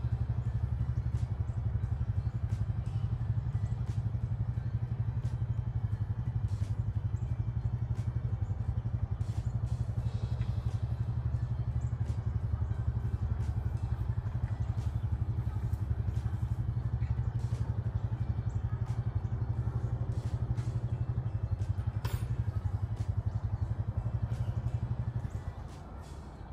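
ATV engine idling steadily, then cutting off about 25 seconds in.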